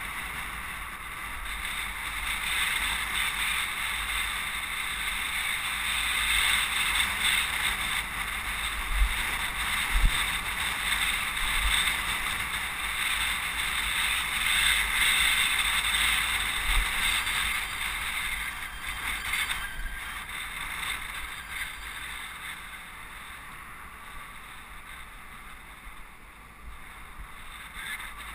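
Wind rushing over the microphone of a camera riding on a moving bicycle, with road rumble and a couple of sharp bumps from the pavement; it swells through the middle and eases near the end as the bike slows.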